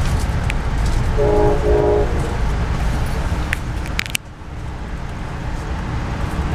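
Steady rumble of a moving passenger train, with a short chord from a train horn about a second in. A few clicks come about four seconds in, and right after them the rumble suddenly drops to a lower level.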